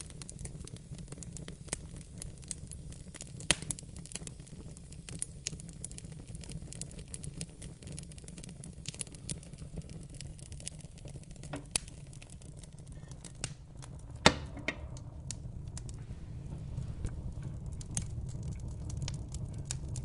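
Wood fire crackling: irregular sharp pops and snaps over a low, steady rumble of burning flames, with the loudest pop about two-thirds of the way through.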